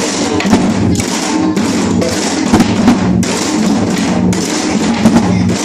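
Samul nori percussion ensemble playing: the kkwaenggwari small gong's clanging rings over janggu and buk drum strokes in a dense, steady rhythm.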